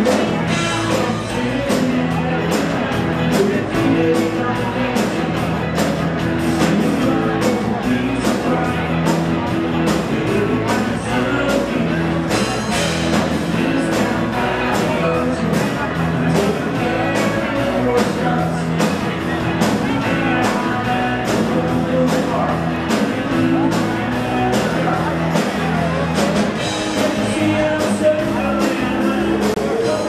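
Live band playing an upbeat rock song with a steady drum-kit beat, bass and guitars, with singing over it.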